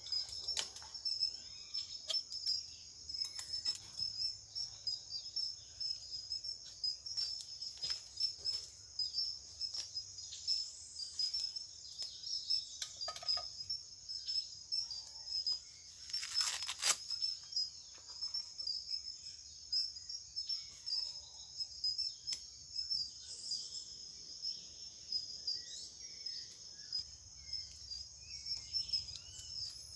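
Steady high-pitched insect chorus of crickets or cicadas, with occasional bird chirps over it. Scattered clicks and knocks run through it, with one louder rustle about halfway through.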